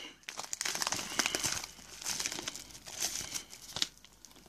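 Packaging crinkling and rustling as it is handled and unwrapped, a dense run of short crackles that dies down near the end.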